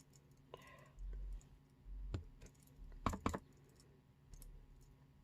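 Faint taps and clicks of a rubber cling stamp being inked on a stamp pad and pressed onto cardstock, with a few dull bumps on the work table and a sharper pair of clicks about three seconds in.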